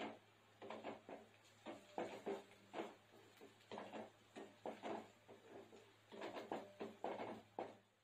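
Wooden spatula stirring and scraping chopped onions around a metal kadai: short, irregular scrapes, two or three a second, over a low steady hum.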